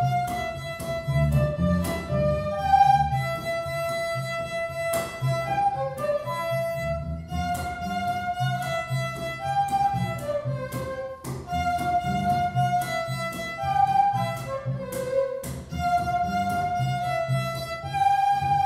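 Live trio of violin, flute and double bass playing a tune together, the melody moving note by note over a low bass line.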